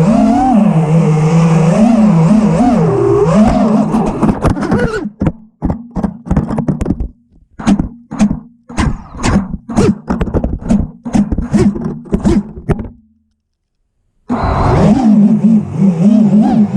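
5-inch FPV freestyle quadcopter's motors whining, pitch rising and falling with the throttle. About five seconds in, the whine breaks into a run of short knocks and choppy bursts. It cuts out completely for over a second, then the motor whine comes back.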